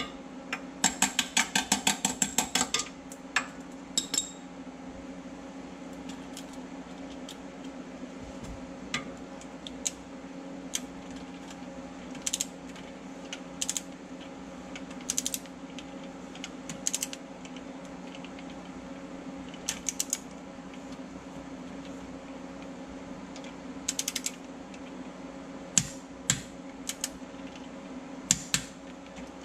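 Hand ratchet clicking as bolts on a steel front differential skid plate are turned. It starts with a fast run of clicks, about eight or nine a second, for about two seconds, then goes on in scattered single clicks and short bursts of a few clicks.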